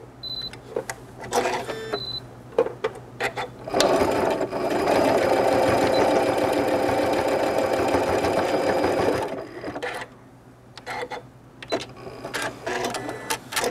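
Janome computerized sewing machine topstitching a fabric tab that holds two metal D-rings. A few clicks and two short beeps, then the machine runs steadily for about five seconds from around four seconds in and stops, followed by more light clicks.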